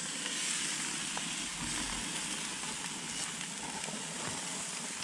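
Meat patties sizzling on a Char-Broil propane gas grill, a steady hiss with the burner flames underneath.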